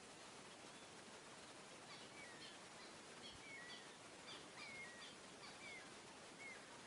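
A bird calling in a quick series of short chirps, some sliding down in pitch, about two a second from roughly two seconds in, over a faint, steady hiss.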